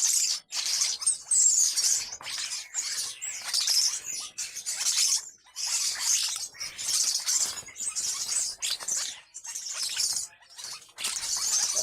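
Two birds squabbling over a fig: a steady run of harsh, scratchy calls, each a fraction of a second long, following one another almost without pause.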